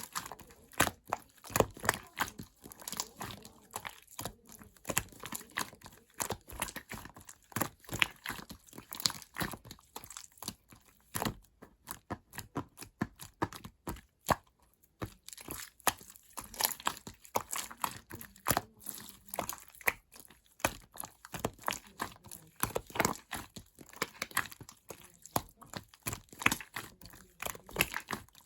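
Hands squishing, pressing and stretching slime, giving dense, irregular crackling clicks and pops, with a quieter stretch about eleven to fifteen seconds in.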